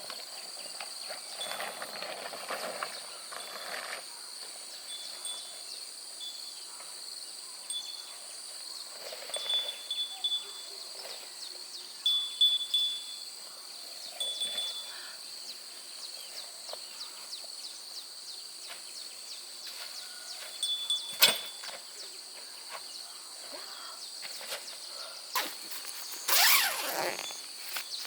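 Outdoor nature ambience: a steady high insect drone with repeated short, high chirps and scattered light ticks. There is one sharp click about three quarters of the way through, and a burst of rustling near the end.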